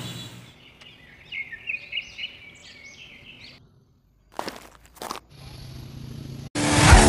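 Birds chirping for a few seconds, then two crunching footsteps. Loud rock music with electric guitar starts about six and a half seconds in.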